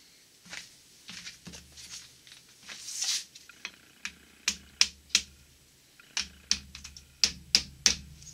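Studebaker V8 rear main bearing cap, fitted with its rope seal, being seated on the engine block by hand: soft scraping and handling at first, then a series of about eight sharp metal clicks and taps in the second half.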